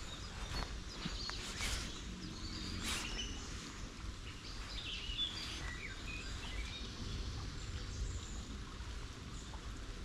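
Small birds chirping now and then, most around the middle, over a steady low outdoor background rumble, with a few faint ticks in the first three seconds.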